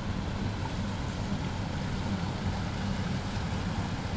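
Loaded canal barge's diesel engine running steadily as it passes, a low, even drone.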